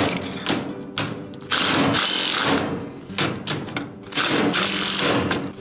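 Cordless drill driver with a nut-driver socket running in about three bursts, a second or so each with short pauses between, as it tightens the bolts holding a caster's mounting plate to a steel tool cart.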